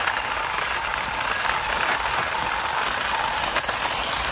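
Yi Gong YG258-E toy-grade RC dump truck driving slowly on asphalt: its small electric motor gives a steady thin whine over an even, rough hiss.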